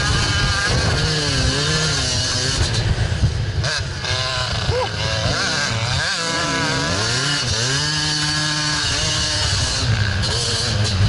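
Dirt bike engine heard from on the bike, revving up and down again and again with the throttle as it is ridden.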